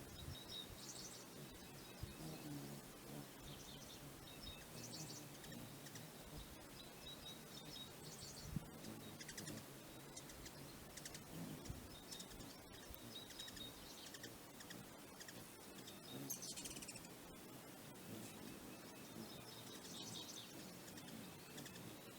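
Wild birds calling outdoors: short, high chirping phrases that recur every few seconds over a faint steady background, with a single sharp click about a third of the way through.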